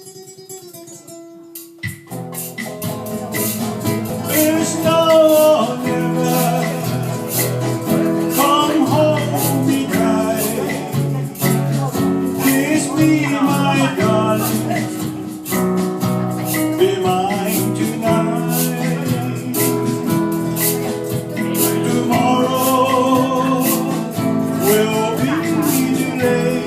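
A pop band's instrumental intro. After a soft opening note, the full band comes in about two seconds in: a lead guitar carries the wavering melody over bass, keyboard, rhythm guitar and drums.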